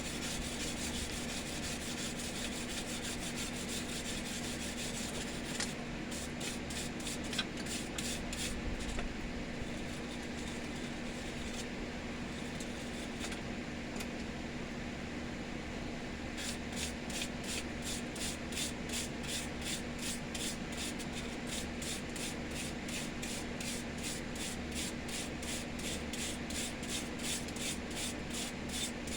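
Hand wire brush scrubbing steel in quick, even back-and-forth strokes to take the forge scale off. The strokes ease off for a few seconds in the middle, and a steady low hum runs underneath.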